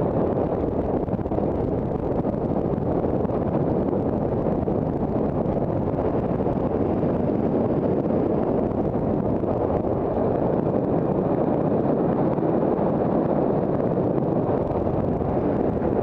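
Wind blowing across the camera's microphone, a steady, even rushing.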